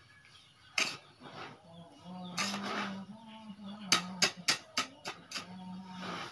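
Granular fertilizer rustling and crunching as it is scooped and stirred by hand on a plastic tarp, with a quick run of sharp clicks a little past the middle. A steady low hum sounds in the background at times.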